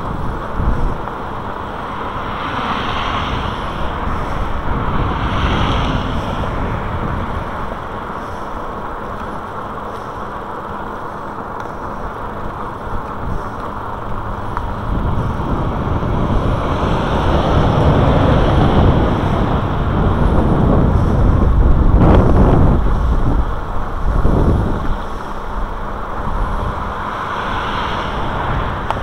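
Wind rushing over the microphone of a camera moving along a road, mixed with road and traffic rumble. The rumble swells in the middle, with two short louder rushes about two-thirds of the way through.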